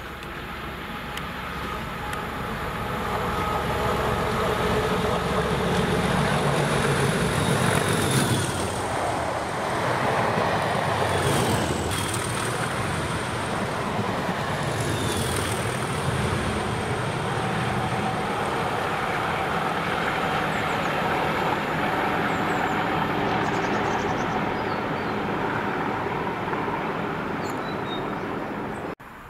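Class 37 diesel locomotives with English Electric engines working a Network Rail test train past at speed: the engines run with a steady pitched note over the rumble of wheels on rail, with a few brief high squeals and clicks in the middle. The sound cuts off sharply near the end.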